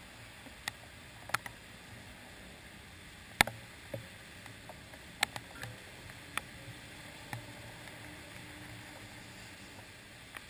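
Raindrops tapping irregularly on a handlebar-mounted GoPro Hero 2's waterproof housing, about ten sharp ticks, over a faint muffled hiss of traffic on the wet street.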